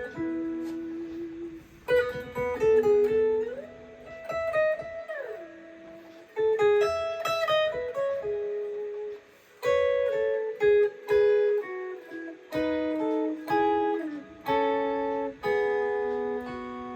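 Guitar playing a melodic line of single plucked notes and short runs, with a string bend up and back down a few seconds in.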